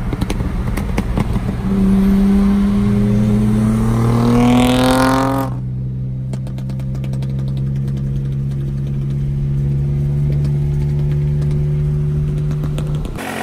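Car engine heard from inside the cabin on a full-throttle highway pull. The revs climb steadily for about four seconds, then drop off suddenly as the throttle is lifted about five seconds in, and the engine settles into a steady cruising hum.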